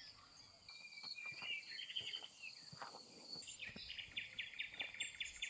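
Faint countryside ambience of birds and insects: a steady high-pitched insect drone under scattered bird chirps, with a quick trill of repeated notes about three and a half seconds in.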